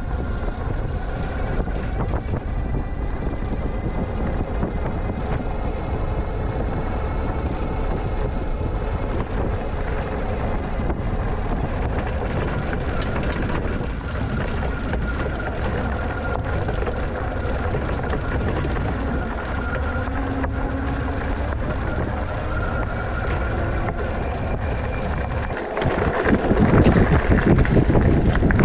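Wind rushing over the microphone and tyre noise from an electric bike being ridden along a path, with a faint steady whine. The noise grows louder and rougher near the end.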